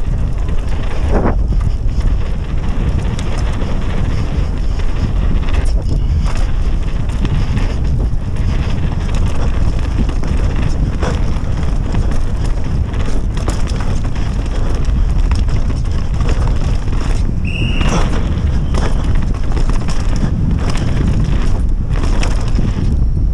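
Wind buffeting the camera microphone and knobby tyres rolling over a dirt trail as a downhill mountain bike descends at speed, with irregular rattling knocks from the bike over bumps. A brief high-pitched sound cuts through about three-quarters of the way in.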